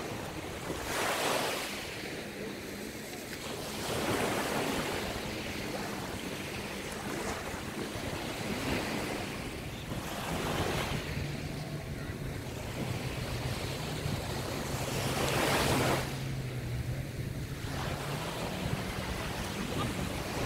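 Small waves breaking and washing up on a sandy beach, the surf swelling in about four louder surges, with wind buffeting the microphone and a faint steady low hum underneath.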